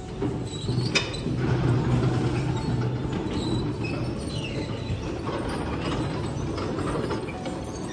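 A row of Tibetan Buddhist prayer wheels spun clockwise by hand one after another: a continuous rumble of the drums turning on their spindles, with light squeaks and a knock about a second in.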